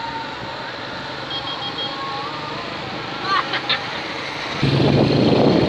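Steady road noise heard from a moving vehicle, with a few faint tones and short chirps. About four and a half seconds in it turns suddenly louder and rougher.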